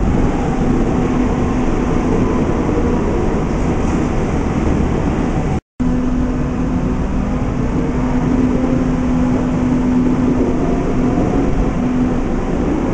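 Munich U-Bahn electric train running along the platform: steady rumbling rail noise with a steady low hum from the train. The sound drops out for a split second about halfway through.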